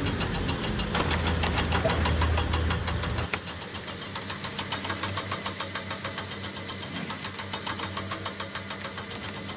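An engine running with a rapid, even knocking clatter. A heavy low rumble under it drops away about three seconds in, leaving the lighter clatter.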